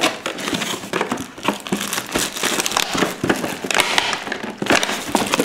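Cardboard packaging being pulled and rustled by hand in uneven, crackling strokes as a headset that is stuck in its box is worked loose.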